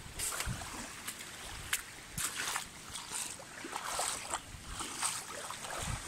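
Small waves lapping and splashing at the edge of a lake in irregular splashes, with wind buffeting the microphone near the start and end.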